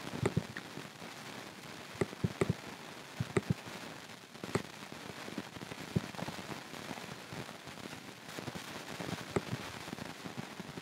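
Irregular clicks of a computer mouse and keyboard as polygons are selected, some close together around two and three seconds in, over a steady hiss.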